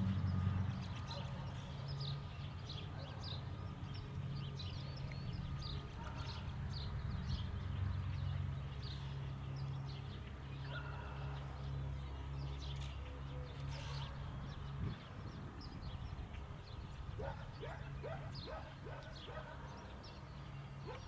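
Distant tractor-driven round-bale grinder running with a steady low hum, which dips about three-quarters of the way through. Small birds chirp over it, and a run of faint clicks comes near the end.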